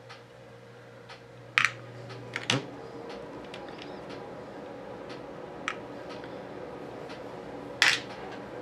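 Hands picking up an airgun pellet and setting it on a small digital pocket scale: four sharp clicks and taps, the loudest near the end, over a low steady hum.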